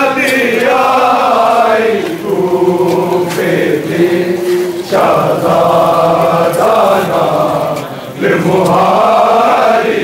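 Men's voices chanting a Punjabi nauha, a Shia mourning lament, in long drawn-out phrases, four in a row with short breaks between them.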